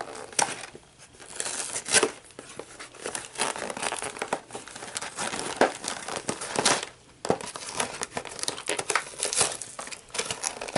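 A LEGO Bionicle cardboard box being torn open by hand: irregular crinkling and ripping as its top flaps and lining are pulled apart, with brief pauses about a second in and again around seven seconds.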